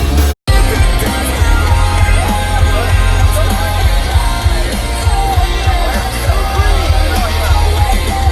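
Rock song with a sung vocal over heavy bass, broken by a brief dead-silent cut a moment in.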